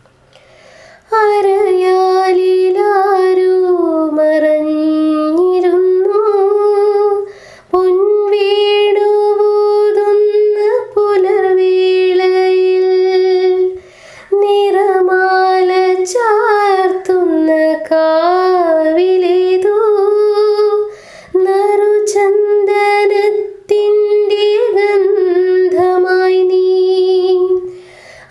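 Background music: a Malayalam song in a wordless sung passage. A voice holds long notes in phrases of a few seconds, with short breaks between them.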